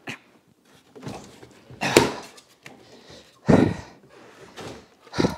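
Heavy Celestron CPC 1100 telescope being lowered and settled into its wheeled hard case: a series of separate knocks and thumps against the case, the loudest about two seconds in and again about three and a half seconds in.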